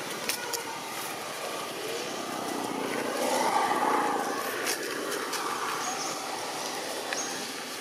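Steady outdoor background noise with a vehicle passing, swelling in the middle and fading away.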